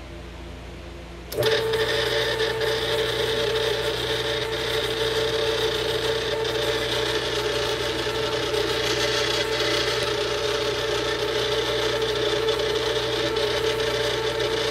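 Hobart N50 stand mixer switched on about a second and a half in, then running steadily with a pitched mechanical hum as its flat beater churns butter and sugars in the steel bowl.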